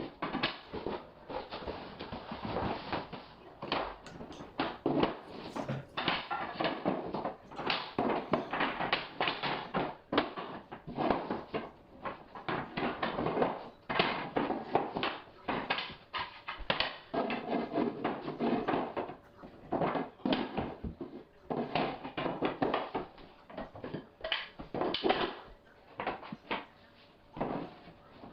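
Irregular knocks and taps, many in quick succession: hardwood flooring boards being laid, tapped together and fastened down.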